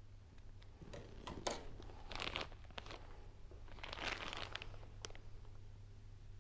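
Plastic piping bag crinkling in two rustling bursts as it is handled, with a few sharp clicks near the start as scissors snip off its tip.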